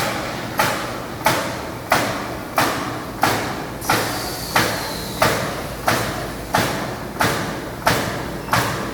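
Robot-driven pneumatic nail gun firing nails into wooden truck-bed planks, one sharp shot about every two-thirds of a second, about fourteen in all, each ringing out briefly.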